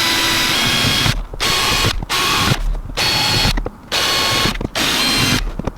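Electric drill with an eighth-inch bit running in repeated short bursts, about one a second, with a steady motor whine, drilling screw holes through the boat's fibreglass deck for the hatch.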